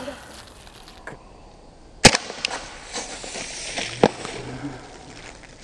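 Umarex Beretta M9A3 blowback CO2 BB pistol firing two sharp shots about two seconds apart, the first about two seconds in and the louder of the two, with a few fainter clicks around them.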